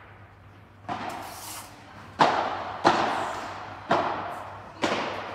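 Padel ball being hit back and forth in a rally: five sharp pocks at uneven spacing, roughly a second apart, each ringing on in the large indoor hall.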